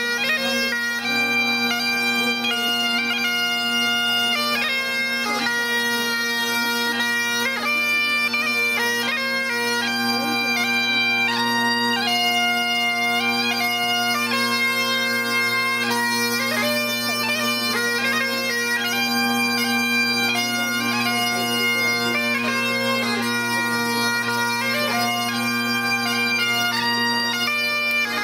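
Bagpipes playing a tune over their steady drones, without a break.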